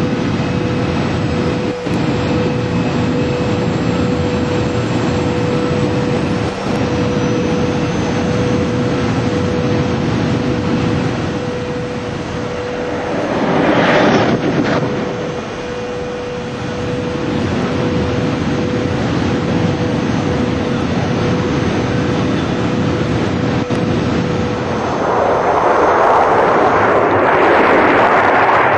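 TGV high-speed test train running at about 570 km/h: a steady rushing noise with a held hum, swelling into a loud whoosh about 14 seconds in and again, louder and longer, near the end as the train sweeps past.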